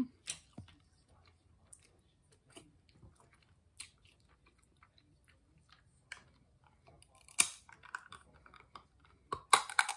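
Close-up mukbang eating sounds: chewing and mouth smacking on seafood-boil food such as snow crab and shrimp, with scattered small clicks. There are two louder crackly bursts, about seven seconds in and just before the end.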